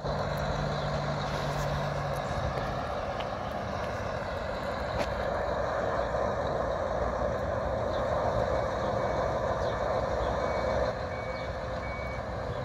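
Heavy diesel logging trucks running in a stopped queue, a steady traffic rumble that eases off near the end. A truck's reversing alarm beeps a few times near the end.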